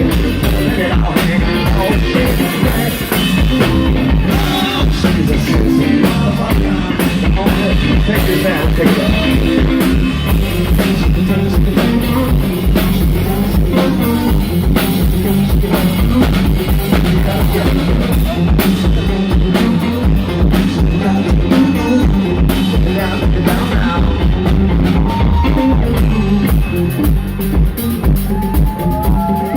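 Live rock band playing, with drum kit and electric guitar and a steady beat throughout.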